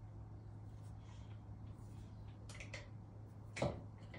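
Quiet room tone with a steady low hum and a few soft clicks, the loudest a little after three and a half seconds in.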